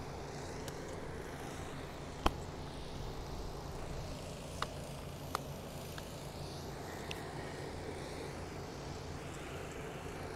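Engine-driven machinery running steadily with a low hum, broken by a few sharp knocks: a loud one about two seconds in and two fainter ones around the middle.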